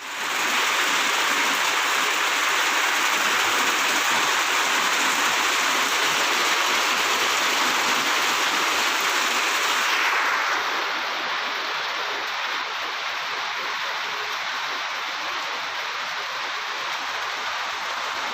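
Heavy rain falling, a steady hiss that gets a little quieter about ten seconds in.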